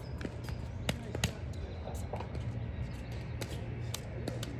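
Pickleball paddles hitting plastic balls, and the balls bouncing on the hard court: a run of irregular sharp pops and taps over a steady low hum.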